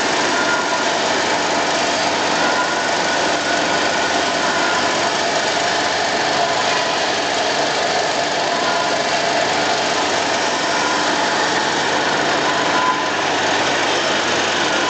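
Rotary vibrating screen sieve running under load, its vibration motor shaking the stacked stainless-steel screen decks. The noise is steady and even, with faint high tones, while powder sifts through and discharges by fineness.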